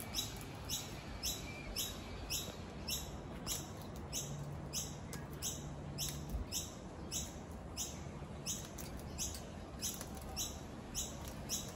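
High-pitched chirping pulsing steadily, about two chirps a second, from a small creature in the surrounding vegetation.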